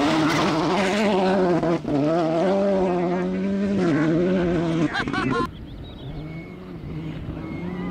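Volkswagen Polo GTI R5 rally car's turbocharged four-cylinder engine revving hard on gravel, its note climbing and dropping at gear changes as it passes close and pulls away. About five and a half seconds in the sound cuts to a second rally car, a Škoda Fabia R5, quieter in the distance and growing louder as it approaches.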